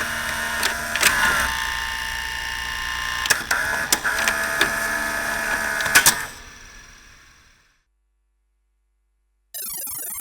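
Synthetic sci-fi laser sound effect: steady electronic tones with short pitch glides and sharp clicks, fading out about six seconds in. Near the end, after a pause, another laser effect with rapidly sweeping tones begins.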